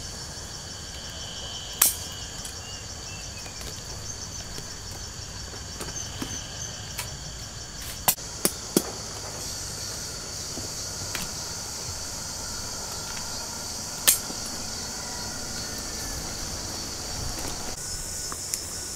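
Insects chirping steadily in a high, pulsing drone, with sharp snips of pruning shears cutting durian fruit stems: one about two seconds in, three in quick succession around eight seconds, and one around fourteen seconds.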